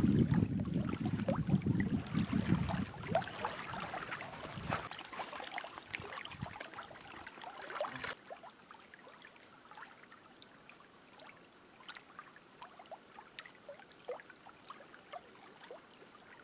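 Small waves lapping against a rocky lakeshore, with wind rumbling on the microphone for the first four or five seconds; after that the lapping goes on more quietly, with scattered faint ticks.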